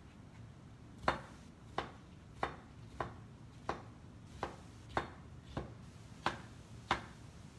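Chef's knife slicing through cucumber quarters and knocking on a plastic cutting board. About ten steady, evenly spaced cuts, roughly one and a half a second, starting about a second in.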